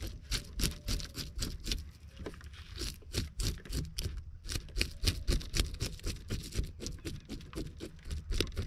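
A spoon scraping the scales off a black sea bass, the scales coming away easily: quick, irregular scraping strokes, several a second.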